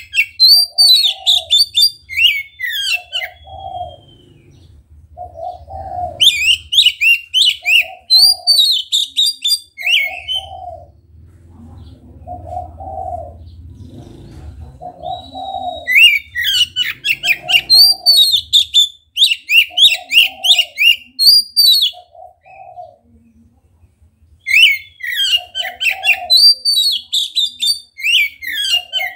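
Oriental magpie-robin (kacer) singing loud bouts of rapid, varied whistled phrases, four bouts with short pauses between. Throughout, a dove coos one low note over and over, about once a second.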